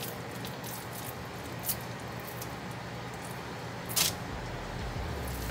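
Hands shaping crab cake mixture, with faint handling sounds over room noise. There are two light taps, a faint one under two seconds in and a clearer one about four seconds in as a patty is set on a paper plate, and a low hum comes in near the end.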